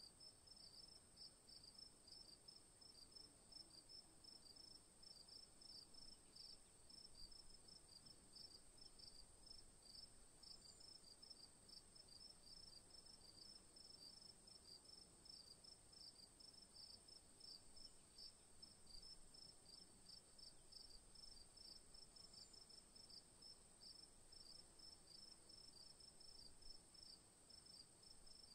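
Faint insect chorus: a steady high-pitched trill, with a second insect chirping beneath it in quick, even pulses.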